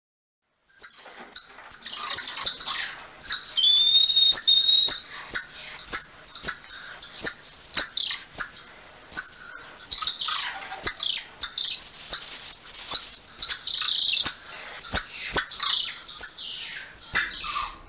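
Golden lion tamarins calling: a busy run of high-pitched chirps, trills and short whistles, with a few longer held whistles and sharp clicks among them, starting about a second in.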